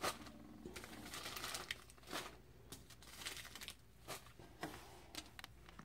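Small plastic zip-lock bags of glitter crinkling and tapping faintly as they are handled and dropped onto a pile, in short scattered bursts.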